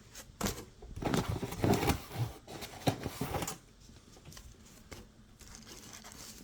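Paper and cardboard packaging being handled: irregular rustling and crinkling with a few sharp clicks over the first three seconds or so, then only light handling noise.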